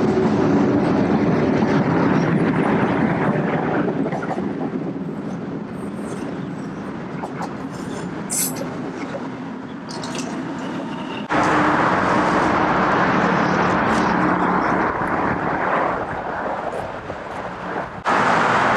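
Sydney Trains double-deck electric passenger train at the platform: a steady hum from its motors and equipment over a rolling rumble, fading after a few seconds, then louder again. The sound jumps abruptly twice where the shot is cut.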